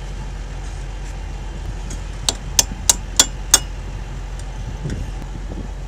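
Five quick metallic hammer taps on the tanker's steel axle hub, about three a second, each with a bright ring. Under them is a steady low engine hum.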